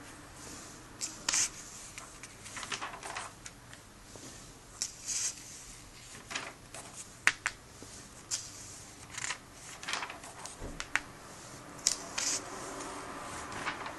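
Pages of a comic book being turned and handled: short paper rustles and light clicks, one every second or so.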